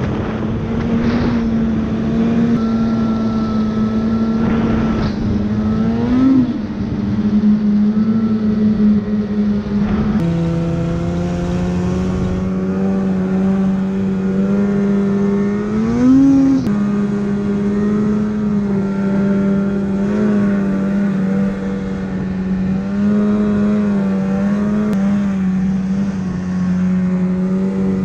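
Arctic Cat snowmobile engine running at a steady cruising note while riding, with two brief revs, about six and sixteen seconds in. The note drops slightly lower about ten seconds in.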